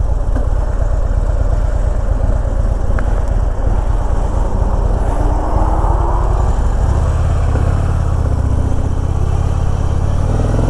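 Harley-Davidson Electra Glide Ultra Limited's V-twin engine running under way, with wind and road noise; the engine's low rumble grows stronger about two-thirds of the way through.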